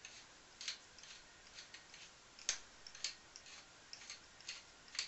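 A hand-twisted grinder mill grinding seasoning over the fish: faint, irregular sharp clicks and crackles, about two a second, the loudest about two and a half seconds in.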